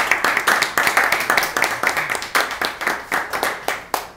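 A small group of people applauding, with quick, irregular hand claps that thin out and grow fainter toward the end.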